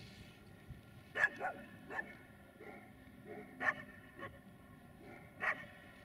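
A dog barking about six times in short, separate barks, three of them louder than the rest.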